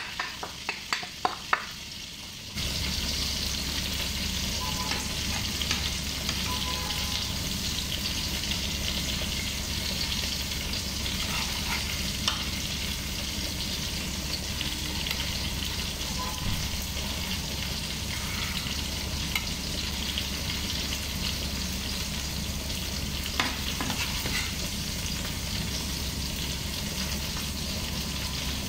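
A quick run of clicks, like a spoon scraping sauce out of a bowl, for the first couple of seconds. Then hot oil sizzling steadily in a frying pan.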